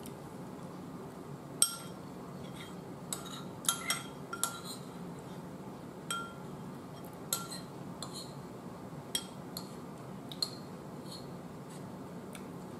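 A metal spoon clinking and scraping against a bowl as chili is scooped up, about a dozen short, irregular clinks with a brief ring.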